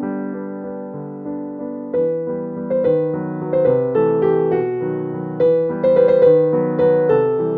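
Background piano music: a gentle, slow melody of single notes, each fading before the next.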